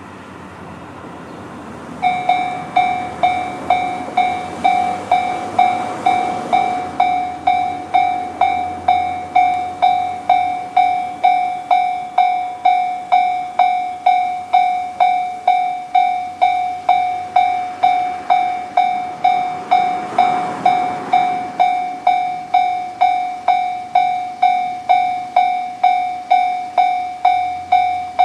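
Japanese railway level crossing alarm, the JR standard electronic warning tone, sounding: a ringing ding repeated about twice a second, each strike fading away, starting about two seconds in. It is the warning that a train is approaching the crossing.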